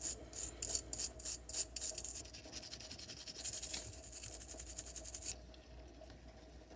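Plastic brush scrubbing rust off a steel knife blade near the tip, in quick back-and-forth strokes of about three a second. A faster run of scrubbing follows and stops abruptly about five seconds in.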